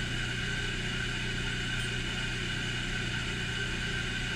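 Steady electric motor hum from running shop machinery, an even drone with a low hum and a couple of fixed higher tones.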